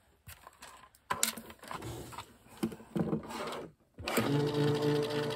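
A few clicks and handling sounds, then about four seconds in the electric die cutting and embossing machine's motor starts: a steady, noisy hum that pulses a couple of times a second as it rolls the embossing folder sandwich through.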